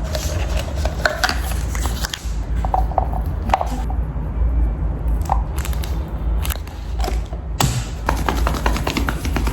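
Scattered clicks and light clatter of food packaging and utensils being handled at a table, over a steady low hum.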